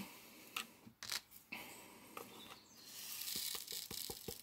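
Faint small plastic clicks from diamond painting work: resin drills and the drill pen tapping against the tray and canvas. Scattered single clicks at first, then a quick run of small ticks in the last second or so.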